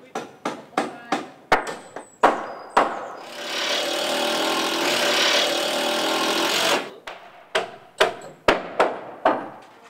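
Repeated hammer blows on timber, about three a second, then a power tool runs steadily for about three and a half seconds. Irregular hammering resumes after it stops.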